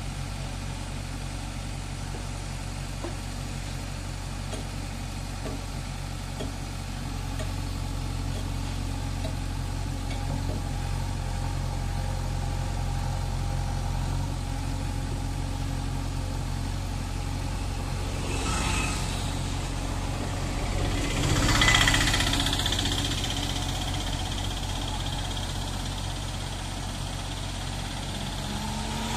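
JCB 3DX backhoe loader's diesel engine running steadily near idle while the backhoe works. A rush of broad noise swells and fades twice about two-thirds of the way through, the second one the loudest.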